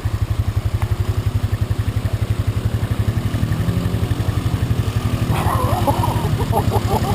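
Vehicle engine running at low speed, a steady low pulsing throb.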